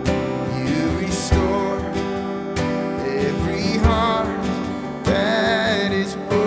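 Worship band music: acoustic guitar strumming with drums and a wordless vocal line held over it.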